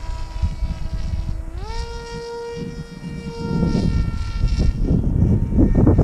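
Electric motor and propeller of a small foam-wing RC plane buzzing at a steady pitch, which steps up sharply about a second and a half in and then holds at the higher note. Gusty wind rumbles over the microphone throughout.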